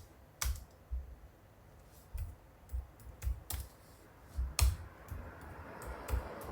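Irregular clicks of laptop keys and buttons being pressed, each with a dull knock on the desk. A soft hiss comes up a little past halfway.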